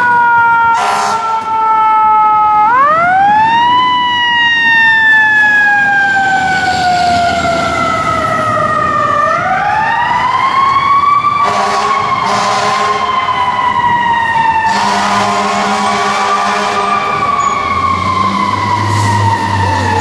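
A fire truck's mechanical siren wails, coasting slowly down in pitch and winding back up twice. In the second half two long air-horn blasts sound over it.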